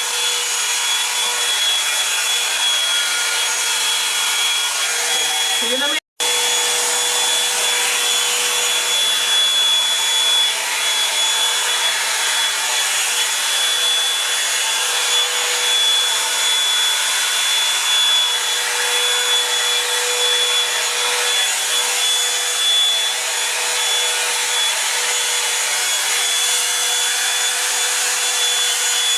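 Revlon One-Step hair dryer brush running steadily on high heat: the fan rushes and the motor gives a constant high whine. The sound cuts out for a split second about six seconds in.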